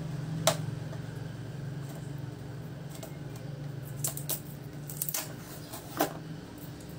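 Sharp plastic clicks and crackles from handling a clear plastic box of foil-wrapped chocolates and peeling off its tape and wrapping: a scattered handful of clicks, most of them in the second half, over a steady low hum.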